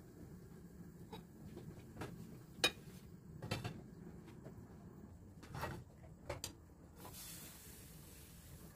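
Light kitchenware clatter from a nonstick crepe pan and utensils on a gas hob: several separate clicks and knocks, the sharpest about two and a half seconds in. Near the end comes a soft hiss as crepe batter is poured into the hot pan.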